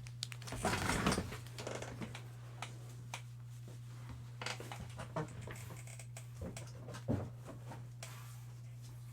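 Rustling and light clicks of trading cards and foil packs being handled, with a crinkly rustle about a second in, over a steady low hum.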